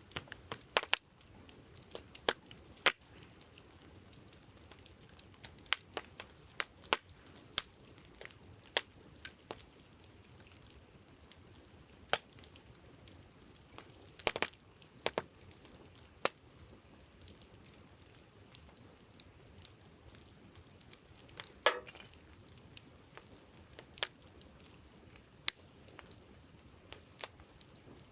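Wood campfire crackling: irregular sharp pops and snaps, a few a second, over a faint steady hiss.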